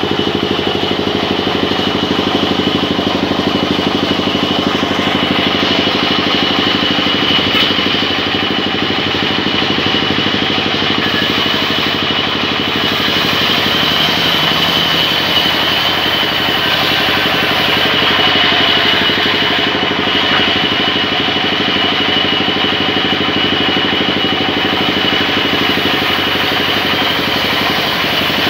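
Large vertical band saw running steadily: a continuous mechanical drone with a steady high whine on top.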